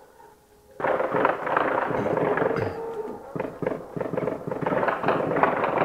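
Heavy gunfire breaks out less than a second in: many rapid shots overlapping into a dense, continuous crackle that keeps going without a pause.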